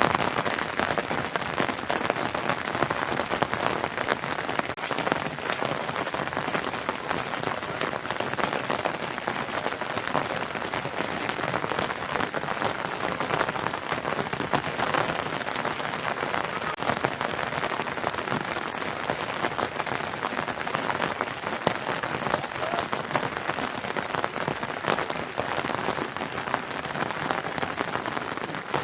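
Steady rain falling, a dense, even patter of drops on surfaces.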